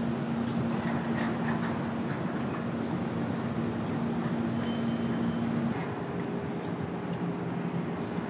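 Steady outdoor urban background rumble with a low steady hum; the hum shifts to a higher pitch about two-thirds of the way through.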